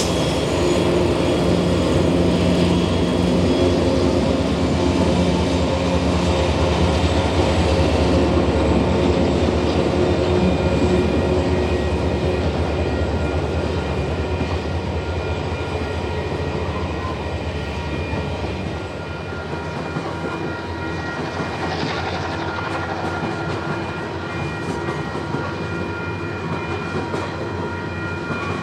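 Diesel locomotives of a grain train passing, their engines' heavy drone loudest for the first two-thirds, then dropping away about two-thirds of the way through as the wagons roll by with clickety-clack of wheels on rail joints.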